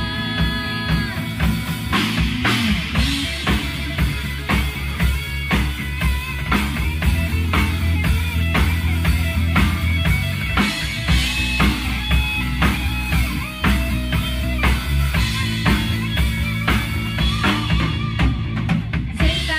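Live rock band playing: a Tama drum kit keeping a steady beat under electric guitar and bass guitar.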